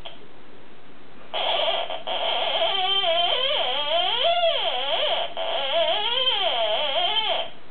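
Small toy theremin's electronic tone, warbling and sliding up and down in pitch as a cat's paws and head move near its antenna. It starts about a second and a half in, breaks off briefly twice, and stops shortly before the end.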